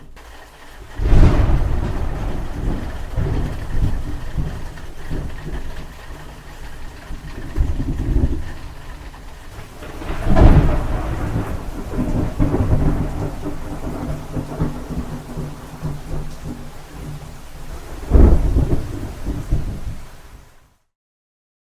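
Thunder in a rainstorm: three loud claps, about a second in, near the middle and near the end, each followed by a long low rumble, over steady rain. The sound cuts off to silence about a second before the end.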